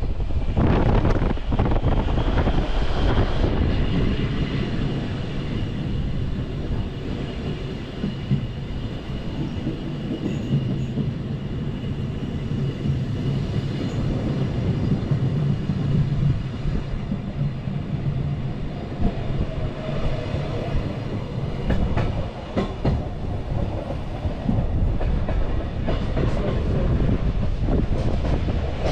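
Glacier Express train running along the track, heard from aboard. A steady rumble carries clicks of the wheels over rail joints, and a thin high wheel squeal sounds through the first half.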